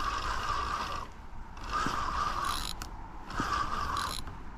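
Fishing reel ratchet clicking in three spells of about a second each with short gaps between, the reel working against a hooked Atlantic salmon.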